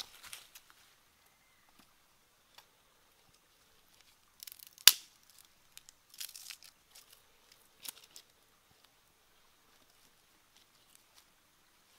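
Dry leaf litter and twigs crackling and rustling in a few short bursts, with one sharp, loud snap about five seconds in and faint scattered ticks near the end.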